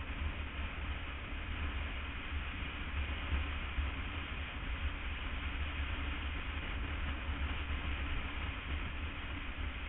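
Steady road noise of a BMW F800 ST parallel-twin motorcycle under way: wind rush over an even engine drone, with a deep, unbroken rumble underneath.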